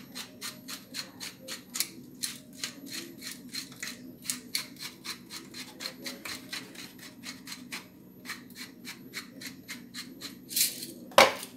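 Black pepper grinder being twisted, a rapid, even train of grinding clicks about four a second. Near the end a short louder rustle and one sharp knock, the loudest sound here.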